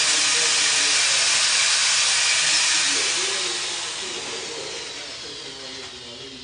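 Welding arc hissing and crackling steadily during a weld pass, getting quieter from about halfway through.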